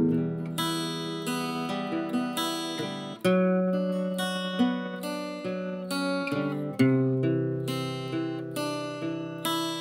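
Background music: an acoustic guitar playing plucked notes and chords.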